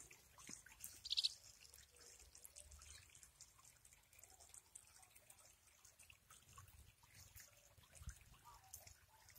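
Near silence, with faint dripping and trickling of irrigation water in a flooded field as scattered soft ticks. A brief high squeak stands out about a second in.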